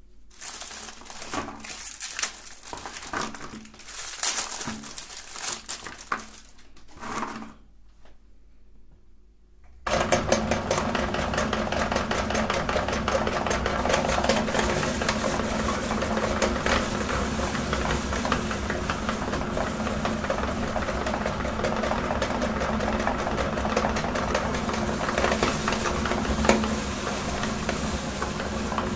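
Light, scattered handling clatter, then about ten seconds in an electric meat grinder starts and runs steadily, grinding Oreo cookies into crumbs.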